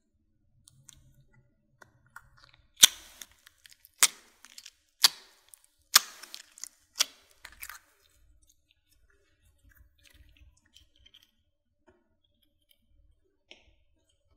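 Six sharp pops about a second apart as glossy slime is worked out of a plastic egg-shaped capsule, then faint soft squishing of the slime in the hands.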